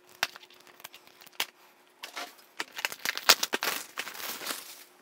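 Clear plastic wrap being torn and peeled off a filament spool box: crinkling and crackling plastic with a few sharp snaps in the first couple of seconds, then denser crinkling through the rest.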